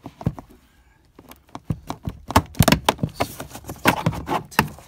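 Plastic interior trim cover being pried and pulled loose with a pry tool. There are a few clicks at first, then after a short pause a quick run of sharp plastic clicks and knocks as the cover works free.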